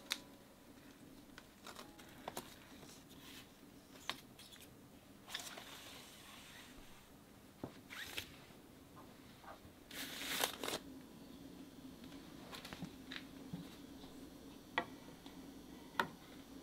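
Vinyl LP records being handled: cardboard and paper record sleeves sliding and rustling against each other as they are pulled from a packed shelf, with scattered light clicks and knocks. The longest rustle comes about ten seconds in.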